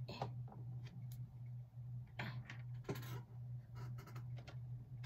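Light clicks and short rustles of small plastic dolls and their accessories being handled, scattered irregularly over a steady low hum.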